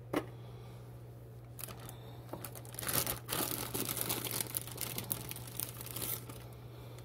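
A sharp click at the start, then a paper towel crinkling and rustling as hands push and gather radish slices and potato peels on it, from about a second and a half in until about six seconds in.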